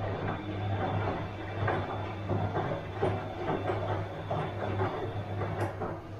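Bosch washing machine running mid-cycle: a steady low hum under an irregular clatter from the turning drum and its load.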